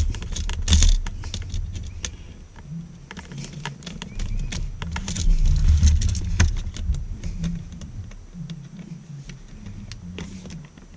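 Screwdriver tightening the ground terminal screw on a duplex outlet held in the hand, with small irregular metal clicks and rattles from the screw, wire and outlet strap being handled.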